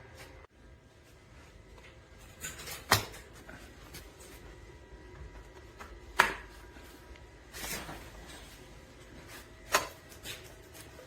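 Three sharp knocks or clicks a few seconds apart over faint room noise, with a brief hiss between the second and third.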